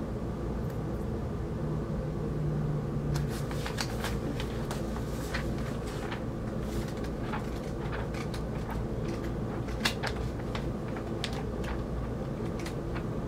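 Large magazine pages of newspaper-like paper being handled and turned: crisp paper rustles and crackles from about three seconds in, with one sharper crackle about ten seconds in, over a steady low hum.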